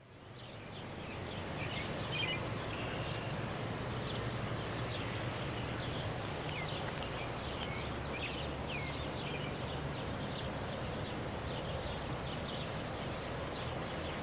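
Birds chirping again and again over a steady low rumble from distant Santa Fe diesel locomotives on an approaching freight train. The sound fades in over the first second or two.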